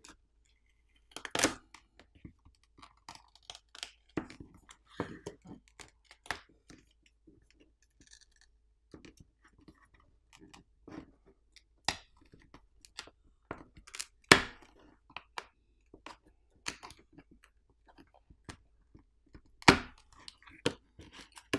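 Samsung Galaxy S24 Ultra screen being peeled by hand off the adhesive holding it to the phone's frame: irregular crackling and small sharp snaps, with four louder cracks spread through.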